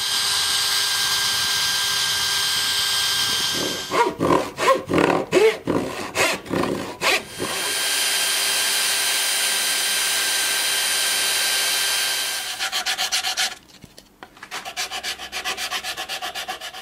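Powered sanding drum grinding a metal mount part: a steady whining hiss, broken in the middle by a few seconds of uneven scraping bursts as the part is pressed on and pulled off, and a fast regular pulsing near the end.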